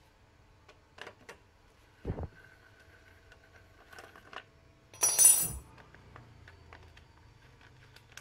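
Hand-tool work on a scooter's plastic radiator cover: scattered light clicks and a knock about two seconds in, then a short metallic clatter with a high ringing tail about five seconds in, the loudest sound.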